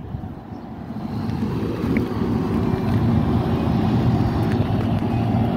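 Low, steady rumble of wind on the microphone while riding a bicycle, growing louder over the first couple of seconds as the bike picks up speed.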